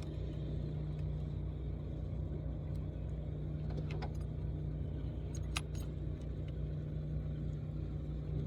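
Steady low hum of a boat motor, with a few light clicks about four seconds in and again around five and a half seconds in.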